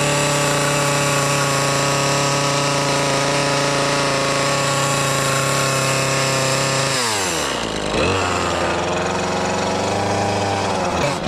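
Stihl two-stroke chainsaw held at high revs at a steady pitch, then dropping back about seven seconds in and running on at lower, uneven revs.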